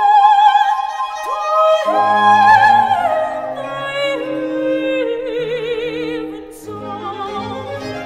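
Soprano singing a Baroque aria with a string orchestra: long held notes with vibrato that slide upward, with the strings coming in about two seconds in. A high trill comes in around the middle.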